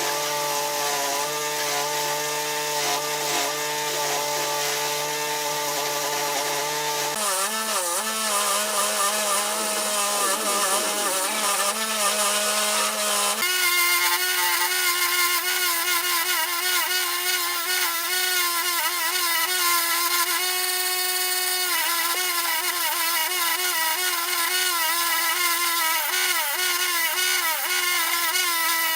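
A power tool running with a steady whine over a hiss, in three stretches whose pitch changes abruptly about seven and thirteen seconds in.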